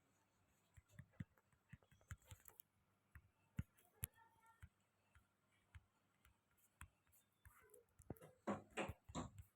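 Near silence broken by faint scattered clicks and taps, with a few louder short bursts near the end.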